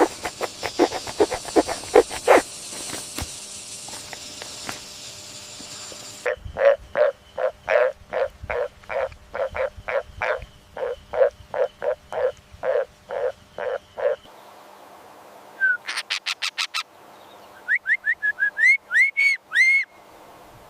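Animal calls in several short clips: first a rapid series of calls over hiss, then a steady series of short pitched calls about two a second, then a quick burst of clicks and a run of short rising chirps near the end.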